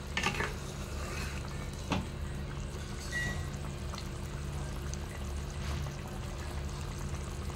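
A watery potato and bottle-gourd curry simmering and bubbling in a nonstick pan, stirred with a wooden spatula that knocks lightly against the pan a couple of times, over a steady low hum.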